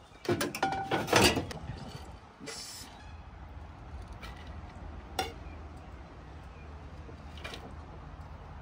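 Metal slotted spatula clattering and scraping against an aluminium cooking pot as cooked rice is scooped out onto a ceramic platter: a quick run of knocks in the first second or so, then a few single clinks, over a low steady hum.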